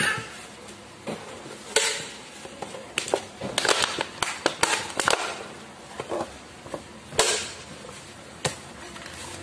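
Stiff corrugated cardboard being rolled up and pressed by hand, giving irregular crackles, creaks and snaps as it bends, with a cluster of them in the middle and single loud snaps near the end.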